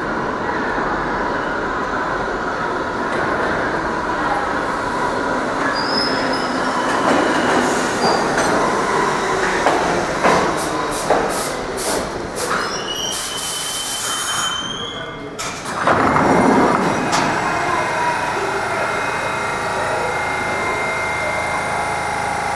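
R68 subway train running into the station: rumbling and clacking over the rail joints, a brief high squeal and a hiss as it stops about two-thirds of the way through, then the steady hum of the standing train.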